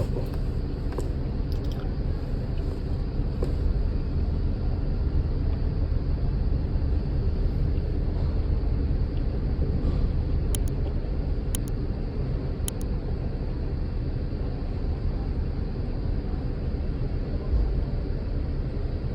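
Hyundai Aura's engine idling with a steady low rumble, while the scan tool reads it for misfire codes. Three faint short ticks come a little past the middle.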